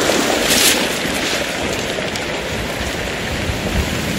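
Steady hiss and wash of sea surf on a pebble beach, with a short sharper rush about half a second in.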